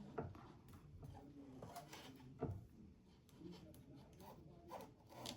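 Faint handling noises: scattered light taps and rubbing as an adhesive-backed LED light strip is pressed onto a sewing machine's body, with two sharper knocks, one just after the start and one about halfway through.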